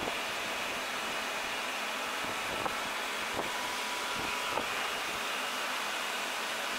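Automatic drilling and chamfering machine at work, its spindle running steadily while the drill is fed down into the valve lifter. A few faint clicks, and a brief steady high whine about halfway through.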